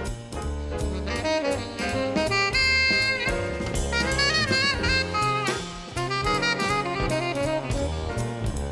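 Live jazz: a tenor saxophone plays a flowing melodic line, backed by a double bass and a drum kit with regular cymbal strokes.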